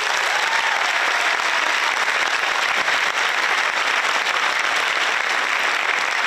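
Large audience applauding steadily, dense and even clapping.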